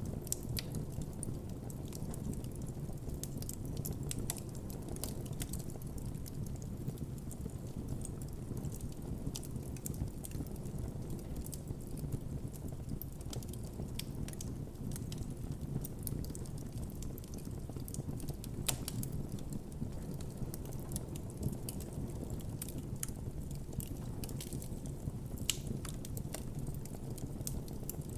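A wood campfire burning, with a steady low rush of flame under frequent sharp crackles and pops from the burning wood.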